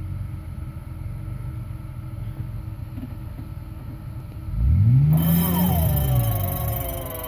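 Jeep Cherokee XJ's engine idling with a low rumble, then revved once about four and a half seconds in, its pitch rising and falling back over about two seconds. The rev is the loudest part. A steady higher whine sets in about five seconds in and carries on.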